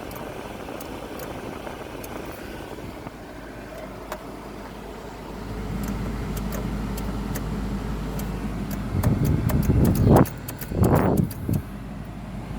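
A Subaru Forester failing to start as the key is turned: a low hum comes on about halfway, then a run of quickening clicks and two short loud bursts of starter noise, without the engine catching.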